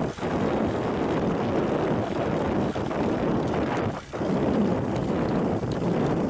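Wind buffeting the microphone: a steady rushing rumble that drops out for an instant about four seconds in.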